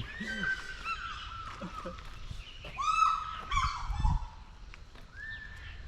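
Birds calling: a string of clear, pitched calls, some held and some falling in pitch, the loudest about three seconds in.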